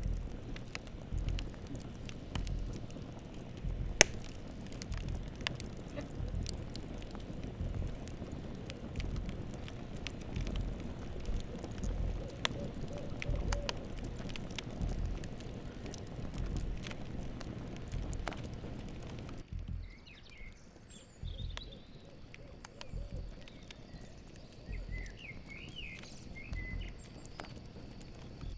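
Campfire crackling and popping over a low rumble, with one loud pop about four seconds in. About two-thirds of the way through the crackle thins out, and a steady high cricket trill and a few short chirps take over.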